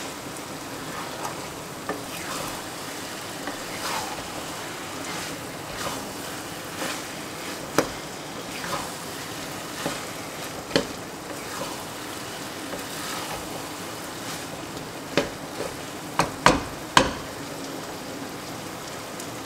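Minced chicken and peas sizzling in a wok, cooked nearly dry in their oil, while a spatula stirs and scrapes through them in steady strokes. There are several sharp knocks of the spatula against the pan, most of them a few seconds before the end.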